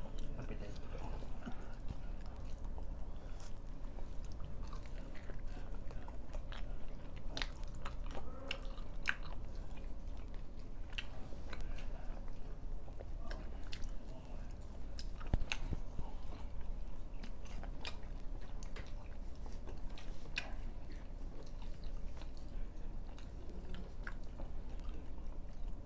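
A person chewing and biting into egg-coated paratha flatbread, with many small irregular clicks from the mouth and food throughout.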